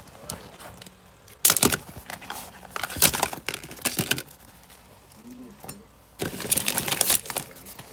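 Makeup packets, sample cards and small boxes being shuffled around in a plastic drawer: rustling and light knocks in several short bursts, the longest near the end.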